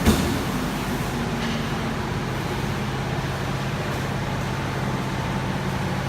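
Heavy truck engine running steadily, with a sharp knock right at the start.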